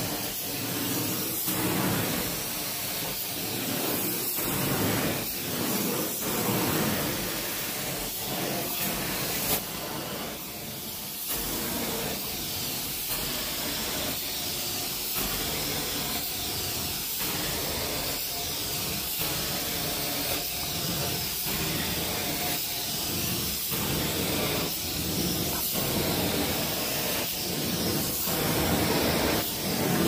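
Carpet-cleaning extraction wand spraying and sucking water through the carpet: a steady hiss of suction and spray that swells and eases with each pass, roughly once a second.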